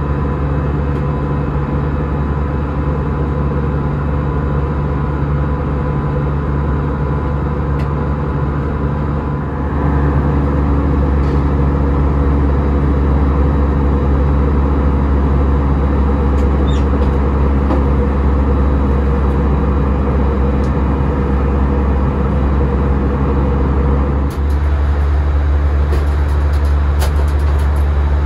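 Steady drone of an Airbus A319's engines and airflow heard inside the cabin, growing louder about ten seconds in and then holding steady, with a few light clicks near the end.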